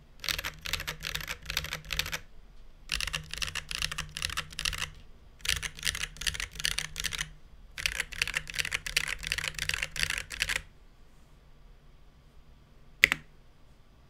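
Typing on a KBD8X MKII mechanical keyboard with lubed Holy Panda tactile switches and GMK Coral keycaps in an undampened case: four runs of rapid keystrokes with short pauses between them, then a single sharp click near the end.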